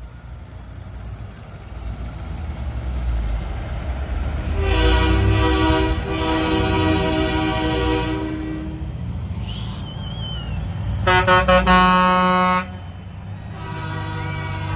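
Semi trucks' air horns blowing as the trucks pass, over the low rumble of their diesel engines. One long blast begins about five seconds in, with a short break, and lasts about four seconds. Around eleven seconds there is a burst of quick toots that runs into a held blast.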